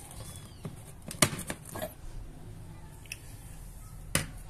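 Plastic clicks and knocks as the lid of a food processor's chopper bowl is worked off and handled, with a sharp knock about a second in and another near the end.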